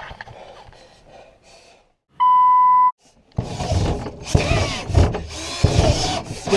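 A short censor bleep, a single steady beep-tone, about two seconds in. Then loud, rough power-tool cutting noise in uneven strokes: a jigsaw cutting the opening for the head unit, through carpet and panel.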